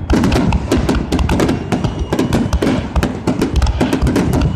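Fireworks going off in a dense, rapid barrage of bangs and crackles, many reports a second overlapping one another, typical of a finale.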